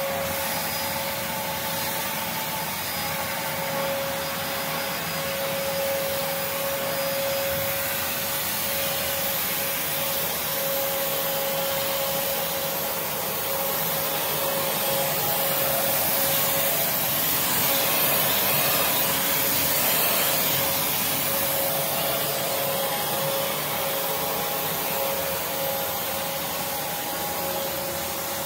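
Prolux X8 Elite backpack vacuum cleaner running continuously: a steady rushing of air with a constant motor whine. It grows somewhat louder around the middle, then settles back.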